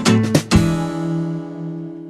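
Background music: fast guitar strumming that stops on a final chord about half a second in, which rings and fades out.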